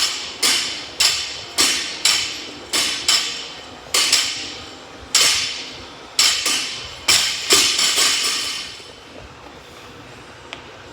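Loaded barbell with metal plates clanking against the floor with each lifting rep, about two sharp, ringing clanks a second, stopping about eight and a half seconds in.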